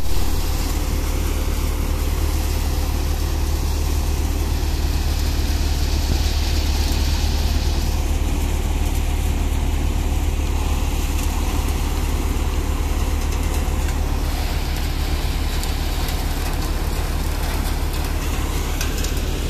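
Tractor-driven Vardhman thresher running steadily under load while threshing. The thresher's drum and fans spin with the tractor's engine in a loud, steady, unchanging hum.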